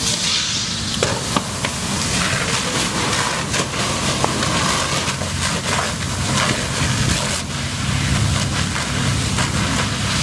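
Fire hose stream hitting the burning cab of a garbage truck: a steady loud hiss of water spray and steam over the fire, with a few sharp pops and a low engine rumble underneath.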